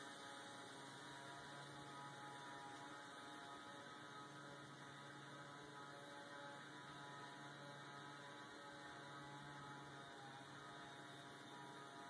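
Faint, steady electrical mains hum from a burnt-out ignition transformer, smoking after its insulation has failed.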